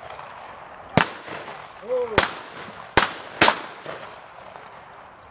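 Shotguns firing at clay targets: four sharp reports, the first about a second in, then one more after a short shouted call, and a last pair about half a second apart.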